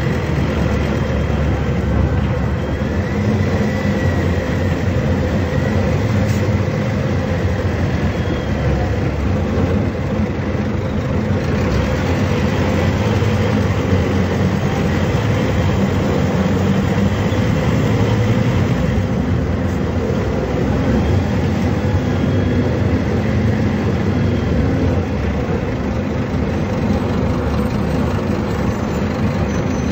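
Scania DC09 five-cylinder inline diesel of a Scania K250 UB city bus running, heard from inside the bus, a steady low engine note with cabin and road noise.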